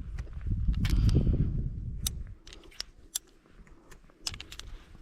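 Metallic clicks and clinks of .45 Colt cartridges being handled and loaded into a revolver, with a low handling rumble in the first two seconds and scattered sharp clicks after.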